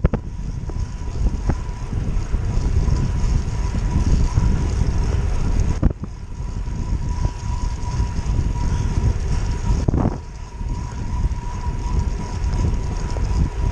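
Wind buffeting the microphone of a handlebar-mounted camera on a road bike moving at speed, a steady low rumble with the hiss of tyres on a wet road. A thin steady whine runs underneath, and the rumble drops out sharply twice.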